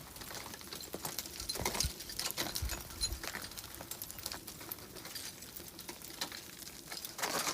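Scattered, irregular light clicks and crunches, with a few soft low thumps about two to three seconds in: a climber moving about on snow and ice with metal climbing gear.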